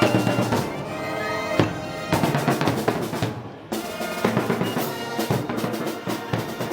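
Festival band music: wind instruments holding notes over a drum section, with snare and bass drum beating steadily and the drums carrying most of the sound after about two seconds.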